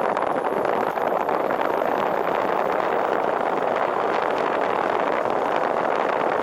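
Steady rushing noise of a car driving on a wet road in the rain, picked up by a camera on the car's roof: wind, rain and tyre spray blend into one even hiss.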